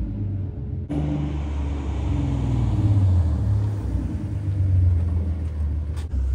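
V6 Mustang driving, a steady low engine and road rumble that changes abruptly about a second in.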